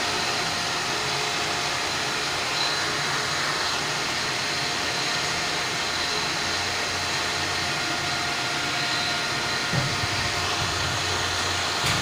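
Electric water pump running steadily: an even motor whirr with a faint steady whine. It runs very smooth on its newly replaced bearing.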